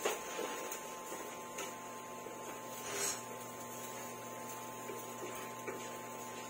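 Steady electrical hum with a faint hiss, broken by a few soft knocks, the loudest about three seconds in.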